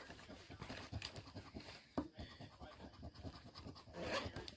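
Faint, irregular scraping of a scratch-off lottery ticket being scratched.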